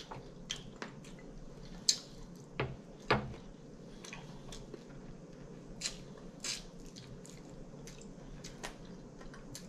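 Close-up mouth sounds of chewing and biting air-fried chicken wings: scattered sharp wet clicks and smacks, with a few louder ones about two to three seconds in.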